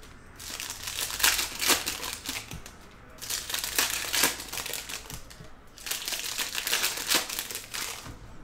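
Foil wrappers of Panini Prizm football card packs crinkling and tearing as the packs are ripped open by hand, in three bursts of rustling with short pauses between.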